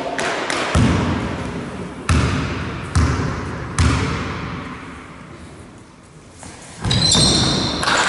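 Basketball bounced four times on a wooden sports-hall floor, about a second apart, each bounce echoing around the hall. Near the end, sneakers squeak on the floor as players start moving.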